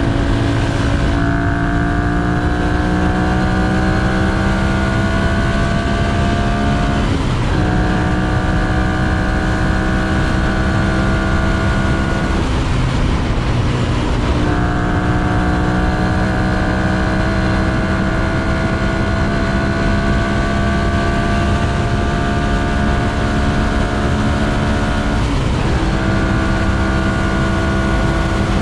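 2011 Ducati Monster 696's air-cooled L-twin engine and exhaust under acceleration, its note climbing steadily in each gear, with breaks at the gear changes about a second in, about seven seconds in, a longer one around twelve to fourteen seconds, and again near twenty-five seconds. A steady low rush of wind runs underneath.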